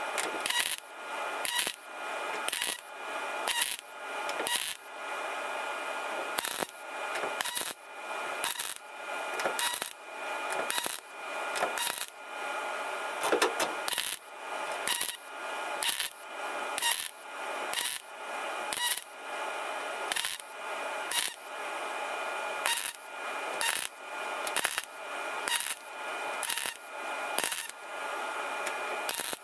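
MIG welder arc (YesWelder MIG 205DS running 0.023 inch wire) laying short spot welds on thin automotive sheet metal: the arc crackles and buzzes in bursts of about a second, one after another with brief gaps, a few held slightly longer.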